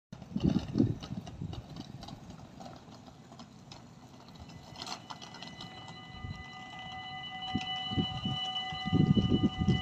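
Level-crossing warning bell ringing in quick, even strokes while the crossing lights flash, its ringing tone swelling louder from about six seconds in. Low thumps come near the start and again near the end.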